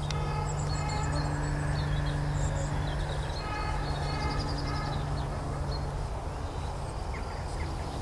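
Outdoor ambience: small birds chirping over a steady low hum, with a brief pitched tone near the start and again in the middle.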